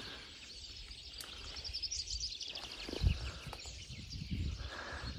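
Outdoor wetland ambience: distant small birds chirping and trilling over a steady hiss, with a few soft low footstep thuds, the strongest about three seconds in.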